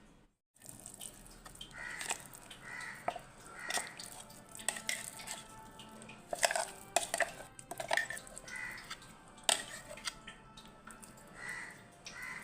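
Crows cawing again and again, mixed with the clinks and knocks of kitchen utensils and dishes being handled.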